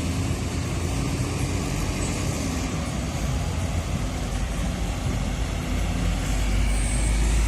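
Busy road traffic: a steady wash of engine and tyre noise with a deep rumble as buses and other vehicles pass.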